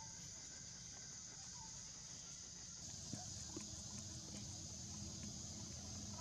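Faint forest ambience: a steady high insect drone, with a few faint short chirps and soft clicks.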